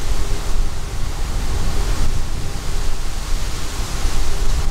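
Wind buffeting the microphone: a loud, gusty rush with a heavy low rumble that rises and falls.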